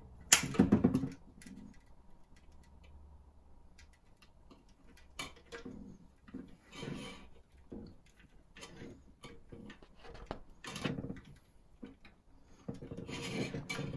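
Hard plastic model-kit parts being handled and pressed together: a loud clatter about half a second in, then scattered light clicks and knocks.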